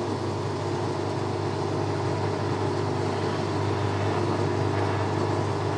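Boxford lathe running steadily, its motor and spindle giving an even hum.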